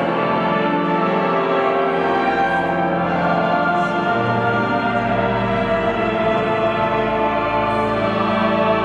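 Cathedral choir of mixed voices singing a sustained choral piece, with lower held notes entering about two seconds in.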